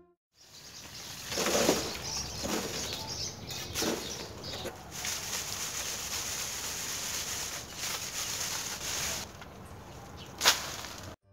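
Soil being shaken through a round coarse wire-mesh sieve over a metal wheelbarrow: a steady rustling hiss of dirt grains and dry leaves on the mesh, with a few sharper scrapes, the loudest about ten seconds in.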